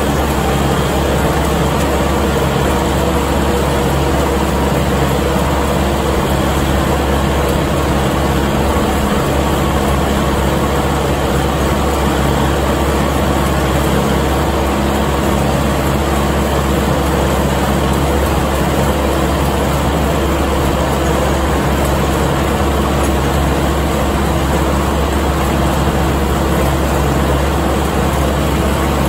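Kubota MX5200 tractor's four-cylinder diesel engine running steadily under load, with the PTO-driven New Holland haybine mower-conditioner running behind it, cutting hay.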